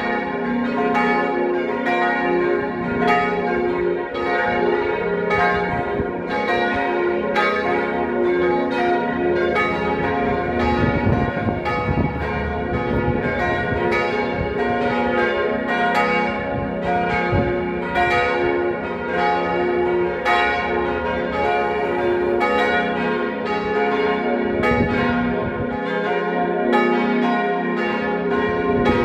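Four church bells tuned to C, B-flat, A-flat and F ringing together in a full peal, their strokes overlapping in a continuous, steady stream of pealing tones.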